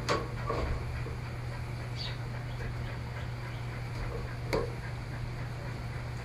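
A few faint, sharp plastic clicks and taps as the back cover of a Samsung Galaxy Tab 4 tablet is pried at, the clearest about four and a half seconds in, over a steady low hum.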